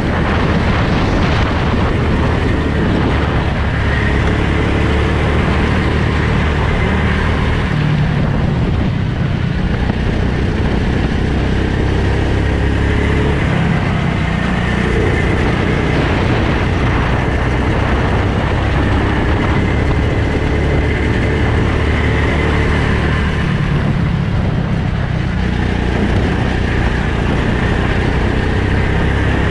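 Go-kart engine running hard on track, heard from the driver's helmet; its pitch drops and climbs again a few times as the throttle is lifted and reopened.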